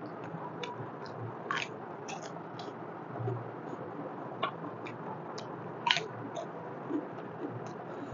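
A person chewing mutton trotter curry, with wet mouth clicks and lip smacks scattered through, the sharpest about a second and a half in and again about six seconds in, over a steady hiss.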